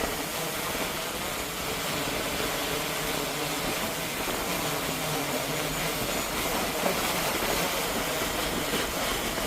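Steady rushing of strong gusty wind, with the faint wavering hum of a DJI Air 3S quadcopter's propellers underneath.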